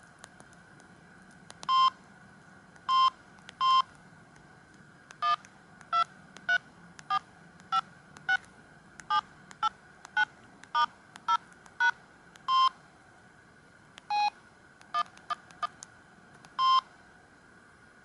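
Samsung SGH-C120 keypad tones: a string of short two-tone beeps as number keys are pressed, roughly two a second through the middle, with a few longer single-pitch beeps near the start and end.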